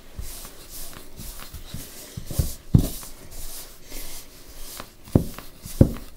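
Hands mixing a crumbly, too-dry flour-and-water dough in a mixing bowl: soft rubbing and squishing, with a few dull thumps about two seconds in and again near the end.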